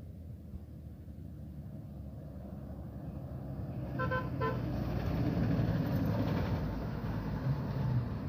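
Diesel engine of a UD Trucks LPG tanker rumbling as it passes close by, growing louder to a peak about five seconds in. Two short horn toots sound just after four seconds.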